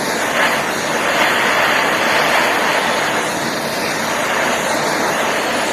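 Butane torch flame hissing steadily as it heats an aluminium rod, a flame the user finds not intense enough to melt the rod.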